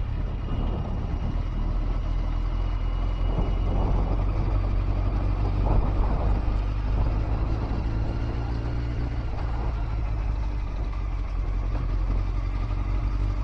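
Honda CBR900 Fireblade motorcycle's inline four-cylinder engine running steadily while riding, with wind and road noise rushing over the microphone.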